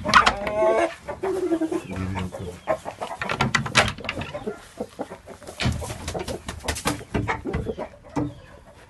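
Chickens clucking and calling in a coop, short pitched calls with a falling squawk about a second in, amid frequent clicks and knocks.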